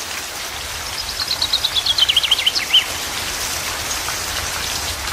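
Steady rain with a songbird singing a quick trill of notes that falls in pitch, starting about a second in and lasting roughly a second and a half.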